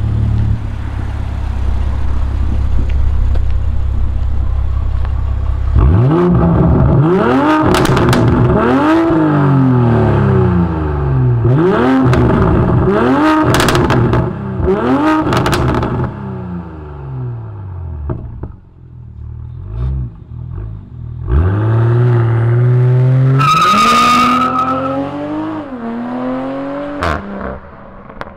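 Straight-piped 2022 BMW 840i's turbocharged 3.0-litre straight-six running at a steady low drone, then revved hard about five times in quick succession, pitch climbing and falling each time with sharp cracks and pops at the top. After a quieter stretch it revs up once more, holding a high steady whine for about a second before dropping away.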